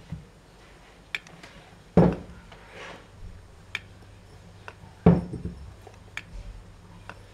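Homemade mini Stirling engine in a clear plastic wheel clicking and clattering as it rocks back and forth. Light irregular clicks, with two louder knocks about two and five seconds in.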